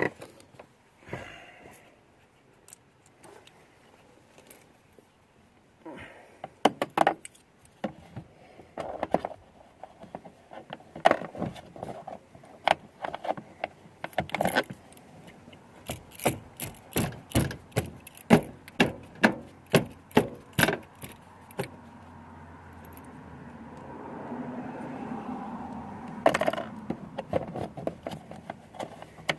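Metal parts and hand tools clicking, rattling and knocking while a car door's handle mechanism is worked on, with a quick run of sharp clicks in the middle. A low steady noise builds up late on and fades again.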